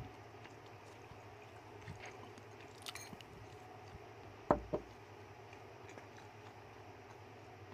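A rat gnawing and chewing a wedge of raw pumpkin, heard as faint scattered clicks over a low background hum. Two sharp knocks about four and a half seconds in are the loudest sounds.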